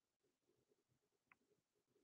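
Near silence: room tone, with one faint short tick about a second in.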